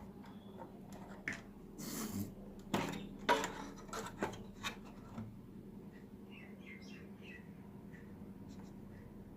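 A run of sharp clicks, scrapes and rustles from handling a TV's replacement speaker and its wires, over a low steady hum; in the second half, a few faint bird chirps.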